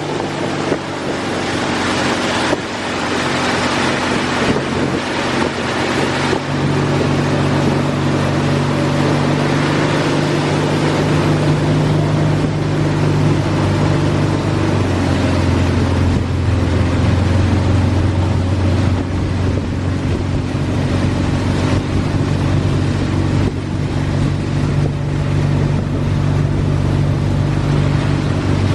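Motorboat engine running steadily at speed, with wind buffeting the microphone. The engine note drops lower about halfway through.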